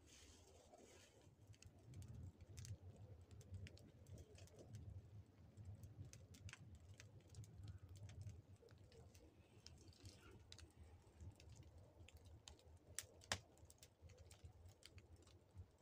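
Faint crackling and snapping of dry reeds burning in a clay fireplace stove, with one sharper crack near the end.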